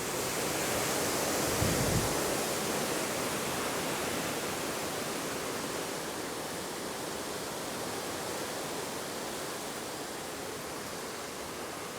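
Storm wind from an approaching hurricane blowing steadily. It gusts a little stronger in the first seconds, with a brief low rumble of wind on the microphone about two seconds in, then eases slightly.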